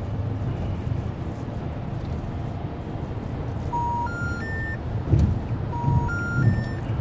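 Steady road and engine noise heard inside a car cruising on a highway. An electronic chime of three rising notes sounds twice, a little before halfway and again near the end, with a few low thumps around the second one.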